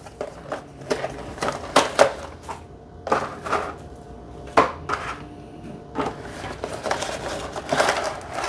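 A 1:400 model airliner and its packaging being handled: irregular clicks, taps and light scrapes, with rustling in between.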